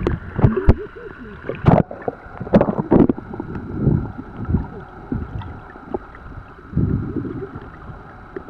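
Muffled underwater sound of a swimming pool picked up by a submerged camera: water sloshing and surging as people move their legs, with several sharp knocks in the first few seconds and a faint steady whine underneath.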